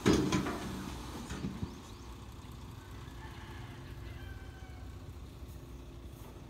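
A loud clattering bang at the start, dying away over about a second, as the dump truck finishes tipping its load of soil and rock, with a smaller knock soon after. Then diesel engines run steadily.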